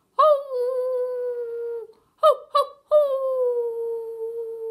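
A person imitating wolves howling with their voice: one long howl, two short yips, then a second long howl that slowly falls in pitch.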